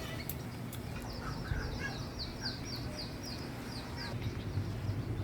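A bird chirping: a quick series of short, high, falling notes, about three a second, starting about a second in and stopping near four seconds.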